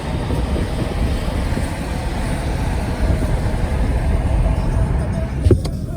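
Steady road and engine noise inside a moving car's cabin: a low rumble with a faint steady hum, and one short knock about five and a half seconds in.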